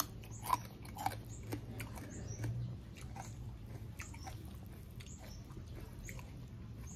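Close-up chewing of a mouthful of food, with a few short wet clicks from the mouth in the first couple of seconds.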